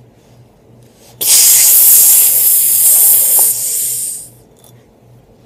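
Pressurised gas hissing out of a fire extinguisher as its head is unscrewed: a loud hiss starting suddenly, lasting about three seconds, dropping partway and then dying out.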